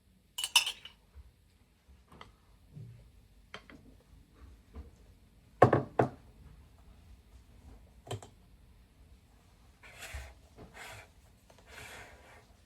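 Household objects being handled: scattered sharp clicks and knocks, the loudest a double knock about six seconds in, then a few soft rustling noises near the end.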